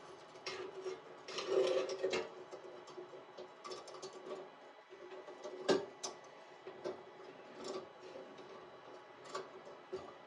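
Small metallic clicks and rattles of a nut being tightened by hand onto the terminal of a replacement heating rod in a pillar room heater's steel housing, irregular, with one sharper click about six seconds in.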